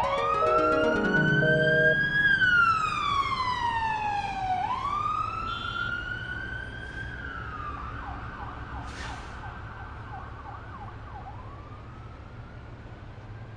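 Warning siren sounding a tornado warning, wailing slowly up and down: it rises for about two seconds, falls, rises again, then fades away. A separate falling synthetic tone overlaps the start.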